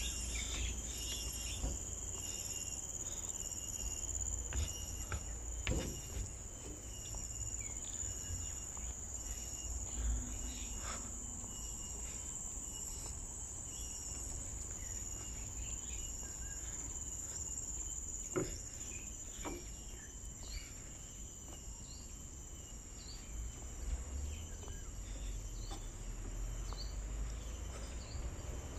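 Steady high-pitched insect drone, with occasional short bird chirps, a few soft knocks and a low rumble underneath.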